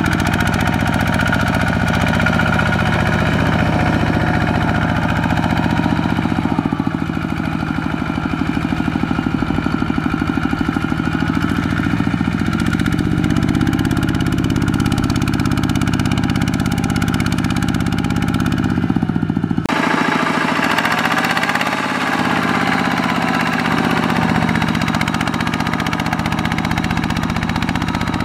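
Single-cylinder Kubota diesel engine of a two-wheel walking tractor running steadily under load, with a fast, even chugging pulse as it hauls a loaded trailer through mud. The sound changes abruptly about two-thirds of the way in, becoming thinner and brighter.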